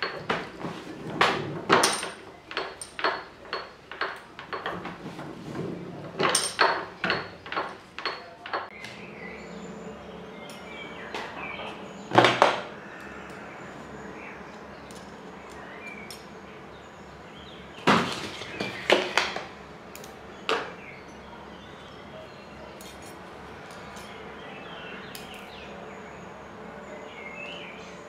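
Sharp metal clicks and knocks: a hand-cranked jeweller's rolling mill is turned, with a quick run of clicks over the first several seconds. Later come a single loud knock and a cluster of clinks as small metal ring pieces are handled on a steel bench block.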